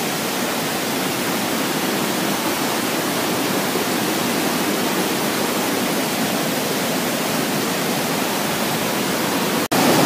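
Steady rush of a waterfall, water cascading over rocks. It cuts out for an instant near the end and comes back slightly louder.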